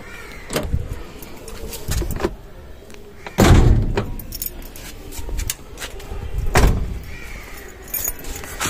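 Car door being unlocked and opened, with keys jangling and a string of clicks and knocks. Two heavy thuds stand out, the loudest about three and a half seconds in and another around six and a half seconds in.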